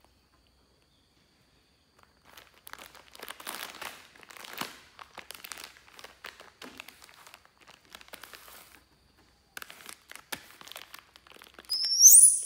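Several seconds of intermittent crinkling and rustling, then near the end a short, loud, high-pitched squeal rising in pitch, typical of a baby monkey.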